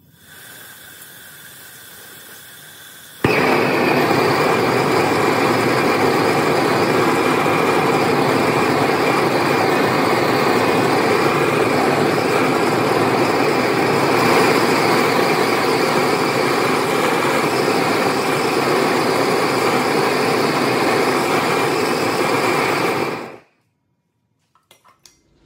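A large weed-burner style gas torch lights suddenly about three seconds in and burns loudly and steadily for about twenty seconds on the steel frame, then cuts off abruptly. A fainter steady noise comes before it lights.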